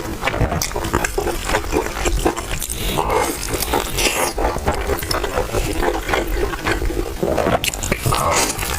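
Close-miked eating sounds: a person chewing a crispy pan-fried stuffed pie, with wet smacking and crunching clicks.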